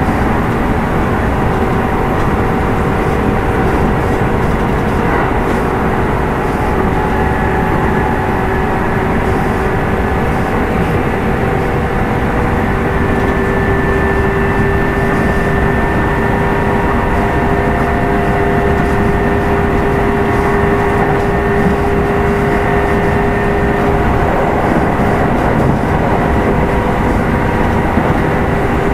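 Kintetsu 2610 series electric train, motor car Mo 2627, running at a steady speed: a steady whine from the traction motors and gears over the continuous rumble of the wheels on the rails, with the whine shifting slightly in pitch partway through.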